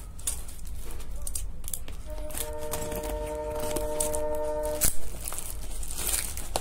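Polythene wrap and bubble wrap crinkling and tearing as a parcel is unwrapped by hand. About two seconds in, a steady pitched tone from an unseen source sounds for about three seconds and stops with a sharp knock.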